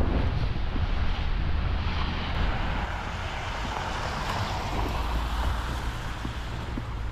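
Wind rumbling on the microphone, with a passing car's tyre noise swelling and fading around the middle.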